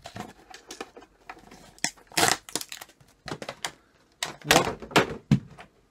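Hand handling of a 1:18 model car on its plastic display base and packaging: a string of irregular clicks, knocks and scraping, loudest about two seconds in and again near the end.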